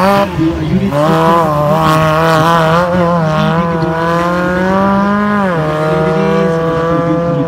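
Off-road 4x4 race vehicle's engine held at high revs under hard throttle, its pitch wavering up and down, then dropping about five and a half seconds in as the revs fall.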